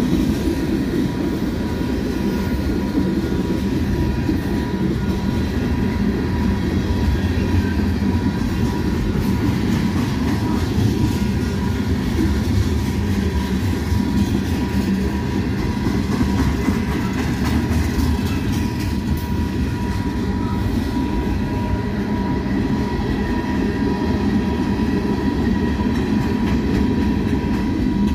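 Freight train of tank cars and covered hopper cars rolling past at speed: a steady rumble of steel wheels on the rails, with a thin steady high tone over it.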